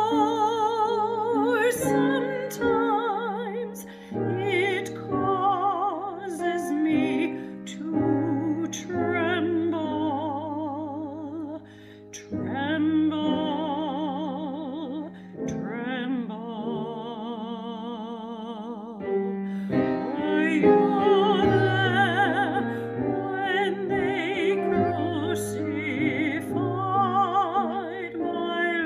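A woman singing a slow hymn solo in an operatic style with a wide vibrato, over piano accompaniment. Her voice drops out briefly about twelve seconds in and again a few seconds later.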